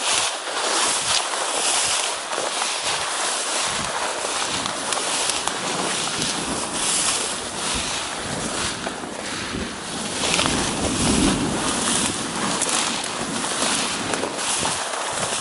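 Tall grass swishing steadily as someone walks through it, in repeated surges with each stride, with wind rumbling on the microphone for a couple of seconds past the middle.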